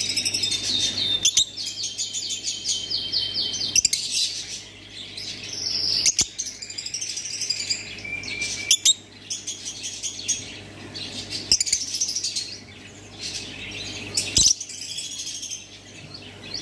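Fischer's lovebird chirping: a busy run of high-pitched chirps and quick trills, broken by a few sharp clicks, over a faint steady low hum.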